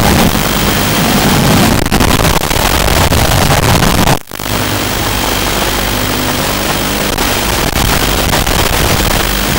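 Small FPV quadcopter's electric motors and propellers buzzing under a steady hiss, with a brief cut-out about four seconds in.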